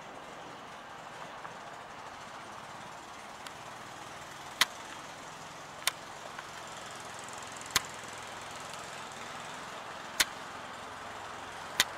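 Steady outdoor background noise, with five short sharp clicks spaced one to two and a half seconds apart from about the middle on.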